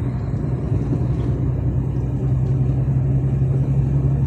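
DAF truck's diesel engine running under load at road speed, a steady low drone. The driver takes it for a misfire under load and suspects a faulty injector or fuel pump.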